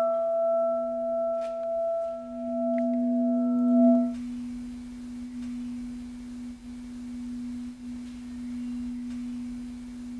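A metal bell ringing after a single strike, with a low hum and several higher overtones. About four seconds in the higher overtones cut off, and the low steady hum goes on alone. The bell is struck as a wordless call for silence.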